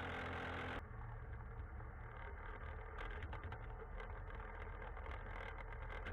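An engine running steadily. About a second in it gives way abruptly to a lower rumble with scattered clicks and rattles.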